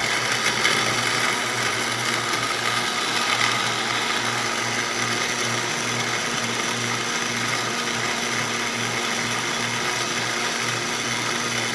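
Countertop blender running steadily at one speed, pureeing canned tomatoes, chopped onion and peppers into salsa. It shuts off at the very end.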